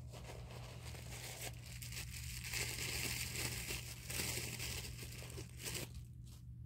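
White paper wrapping rustling and crinkling as it is crumpled and pulled open by hand, loudest about halfway through and stopping about six seconds in.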